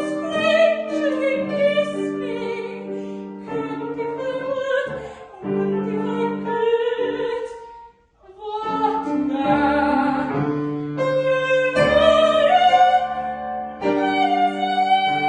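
Mezzo-soprano singing in operatic style with piano accompaniment, breaking off briefly about halfway, then climbing to a long high note sung with vibrato near the end.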